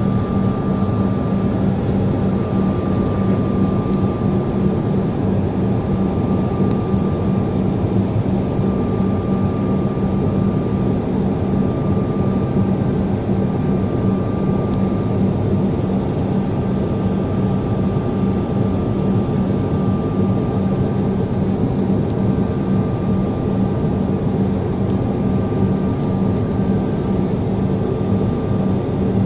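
Steady engine and rushing-air noise inside an airliner's cabin in flight, with a constant low hum and a faint higher tone that fades in and out.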